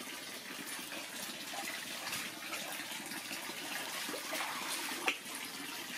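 Steady pouring and splashing of water streaming into an inflatable paddling pool, with a single sharp knock about five seconds in.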